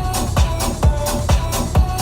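Electronic dance music with a steady kick drum about two beats a second under sustained synth notes.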